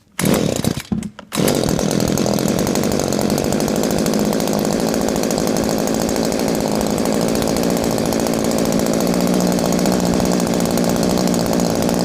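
Gardenline PCH25 petrol chainsaw's two-stroke engine starting on a pull of the starter cord. It sputters briefly, catches about a second and a half in, then idles steadily as it warms up.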